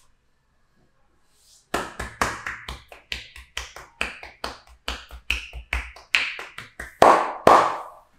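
Percussive back massage: hands striking a person's back in a fast series of sharp slaps, about four a second, starting a little under two seconds in, with the last two strikes the loudest.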